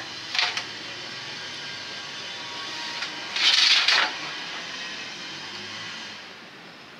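Metal handling noises as a valve spring is set over a valve stem on a diesel engine's cylinder head: a brief clatter just after the start and a louder scrape lasting under a second about halfway through, over a steady hiss.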